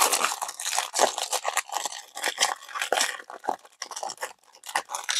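Wrapper of a Donruss football trading-card pack being torn and crinkled by hand, a dense irregular crackling with tearing noises. The pack is hard to get open.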